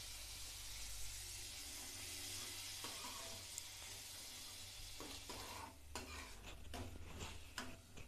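Onion-tomato masala with soaked crushed soya chunks sizzling in mustard oil in a metal pan, with a steady hiss. From about five seconds in, a metal ladle stirs and scrapes against the pan in quick knocks.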